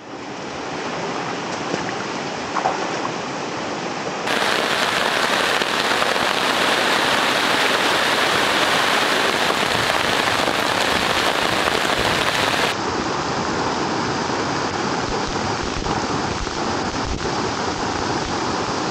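Heavy rain falling steadily. It is heard as three spliced stretches, the middle one, from about four to thirteen seconds in, louder and brighter than the others.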